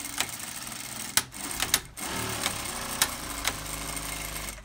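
CT-8700 direct-drive industrial lockstitch sewing machine stitching, with sharp clicks. It stops about a second in and runs again from about two seconds in, going back and forth as its manual bar-tack button is pressed.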